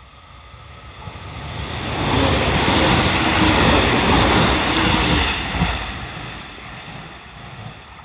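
JR Central 313 series electric multiple unit passing at speed. Its running noise swells to a loud rush of wheels on rail about two seconds in, holds for a few seconds, then fades as the train moves away.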